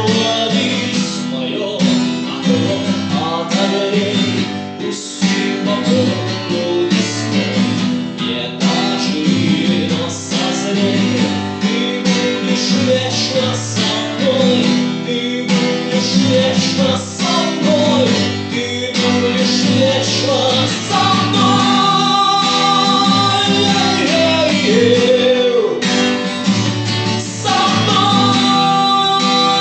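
Music: an instrumental passage of a song, led by a plucked acoustic guitar, with long held melody notes from about two-thirds of the way through.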